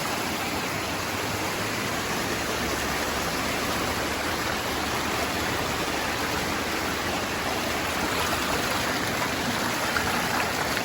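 Mountain stream rushing steadily down a rocky waterfall cascade, a constant even wash of water noise.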